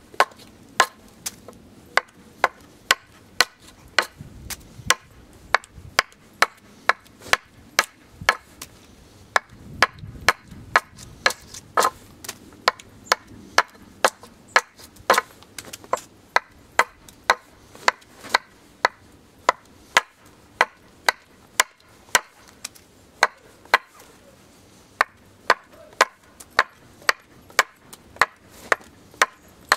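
Hatchet chopping into an upright hazel log, hewing it flat into a ski: short, sharp wooden strikes at a steady pace of about two a second.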